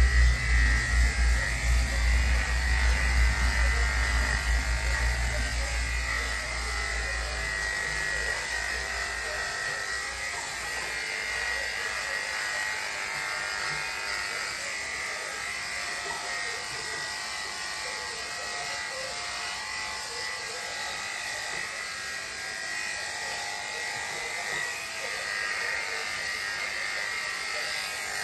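Electric dog-grooming clippers fitted with a #5 blade, buzzing steadily as they cut a dog's coat. A low rumble underneath is strong at first and fades away over the first several seconds.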